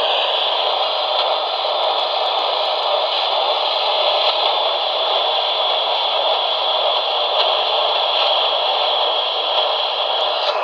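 Steady static hiss from a radio receiver with no programme audio, even and unbroken.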